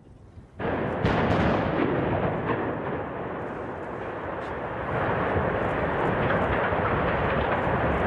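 Explosive demolition of a 111 m steel blast furnace: a sudden loud blast about half a second in, a second sharp blast a moment later, then a continuous heavy rumble from the charges and the collapsing structure that swells again about five seconds in.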